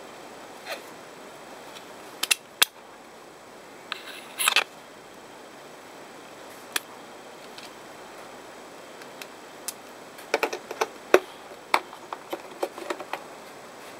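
Scattered sharp clicks and clacks of hard plastic and metal as a disassembled Xbox One controller is handled and a screwdriver bit is taken from a plastic bit case, with a quick run of clicks about ten seconds in, over a steady hiss.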